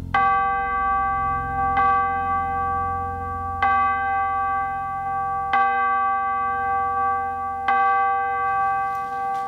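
A bell struck five times, about every two seconds, each strike ringing on with the same set of pitches over a low hum.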